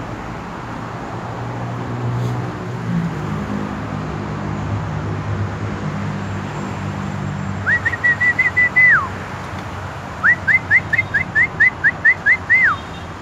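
Dogs whining excitedly in quick strings of high, rising whimpers, two runs starting about eight and ten seconds in, over a steady low rumble of road traffic.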